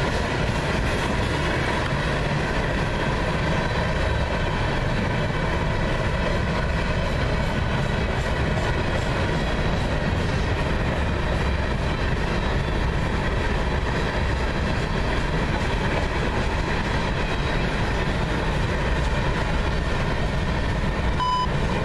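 Freight train cars, tank cars and covered hoppers, rolling past on steel rails: a steady noise of wheels on track that does not let up.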